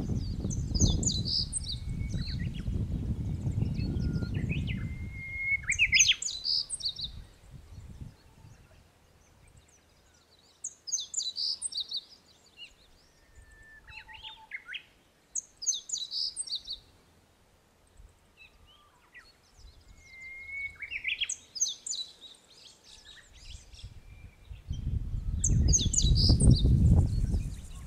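A songbird repeating short, high, twittering song phrases about every five seconds, some opening with a quick rising whistle. Gusty wind rumbles on the microphone for the first few seconds and comes back strongly near the end.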